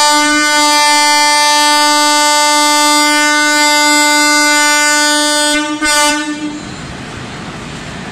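WAP-7 electric locomotive's roof-mounted air horn sounding a long steady blast, breaking off about five and a half seconds in, then a short second blast: the departure horn. Afterwards a steady rushing noise remains.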